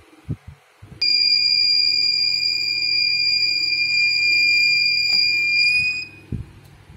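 Water level meter's buzzer sounding one steady, high-pitched tone from about a second in, rising slightly in pitch just before it cuts off about six seconds in. The tone signals that the probe is in contact with water.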